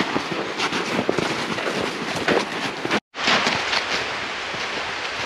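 Footsteps crunching through packed snow, an uneven run of crunches. A brief silent gap about three seconds in.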